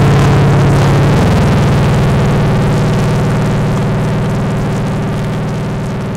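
Background music: sustained synthesizer chords that shift about a second in, then hold as the music slowly fades out.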